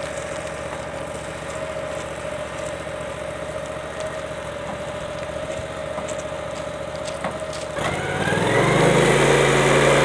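An engine idling steadily. Near the end a louder engine cuts in, rises in pitch as it revs up, and then holds a steady, higher running speed.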